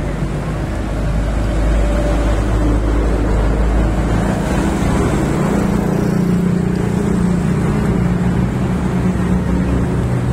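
Steady low rumble of a motor vehicle engine running close by, over road traffic noise.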